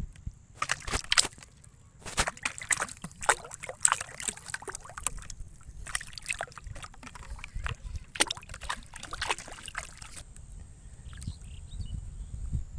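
Water sloshing and splashing in quick irregular bursts, stopping about ten seconds in.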